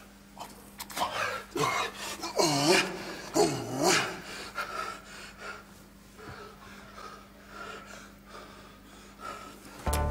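A man panting heavily and letting out strained, wordless cries and gasps while straining to revive an unconscious man; the cries are loudest a few seconds in, then the breathing goes on more quietly.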